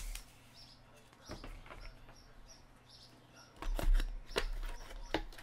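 Paper trading cards being handled on a table: scattered soft taps and rustles as a stack of cards is shuffled and set down. The loudest clatter comes a little under four seconds in.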